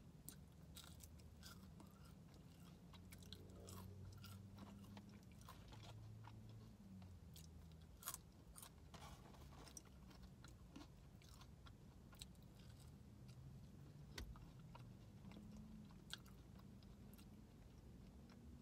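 Faint close-up chewing of French fries, with soft crunches and small wet mouth clicks scattered throughout and a sharper click about eight seconds in.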